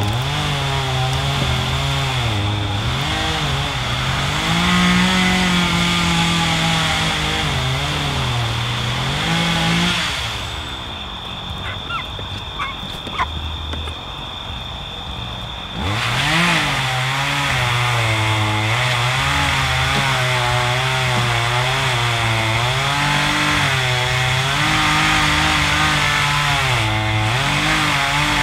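A small motor running, its pitch rising and falling again and again. About ten seconds in it drops low and quieter for some six seconds, then revs sharply back up and keeps running.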